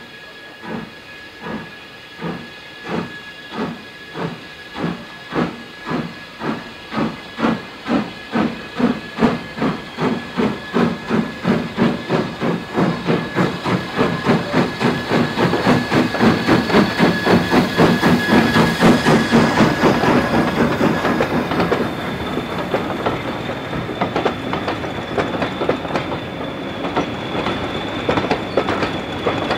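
Lambton Colliery 0-6-2 tank engine No. 29 pulling away with its train: slow, loud exhaust beats over steam hiss, quickening steadily to a rapid chuff. After about twenty seconds the beats fade into the steady rolling of the coaches, with wheels clicking on the rail joints and a thin wheel squeal in the last seconds.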